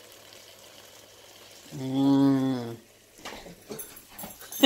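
Cinnamon rolls and ham cooking in a closed waffle maker, sizzling faintly. About two seconds in, a dog gives one steady, drawn-out vocal call lasting about a second, which is the loudest sound. A few faint clicks follow near the end.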